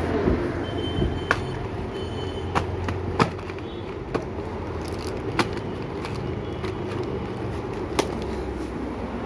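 Handling noise: half a dozen sharp taps and clicks as boxed chocolate bars are picked up, shuffled and set down, over a steady low background rumble.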